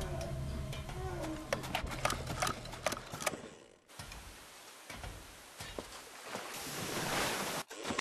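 Water gushing and splashing, with a run of sharp splashes and knocks in the first few seconds. It drops out briefly about four seconds in, then swells into a louder rushing hiss that cuts off suddenly near the end.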